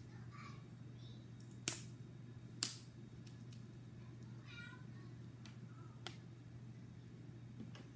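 Two sharp plastic clicks about a second apart as a protein test swab is pushed into its tube to activate the test, with a few fainter ticks after. About halfway through comes a brief high wavering call in the background, over a steady low hum.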